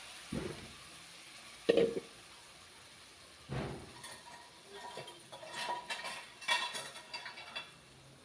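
A cooking utensil knocking and scraping in a pan while chili paste is stirred: a few separate knocks, then a run of clattering in the second half.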